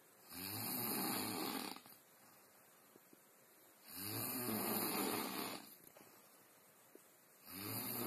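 Snoring: three long snores, each about one and a half seconds, coming regularly about three and a half seconds apart, the last one starting near the end.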